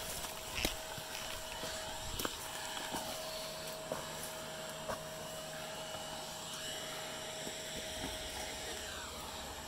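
Dirt bike engine running steadily, a single held note, with a few sharp knocks scattered through it.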